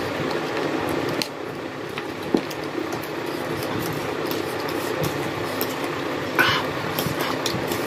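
Eating at the table: metal forks clicking and scraping against plastic food trays, with noodle chewing, a few sharp clicks standing out, the loudest one late on. A steady background hum runs underneath.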